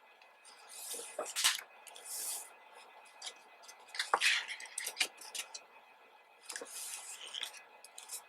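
Glossy pages of a photobook being handled and turned, with several short rustles and sliding paper noises and small clicks.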